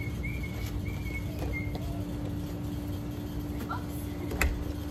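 Steady low hum and rumble, with a short run of high chirps in the first second and a half and a single sharp click about four and a half seconds in.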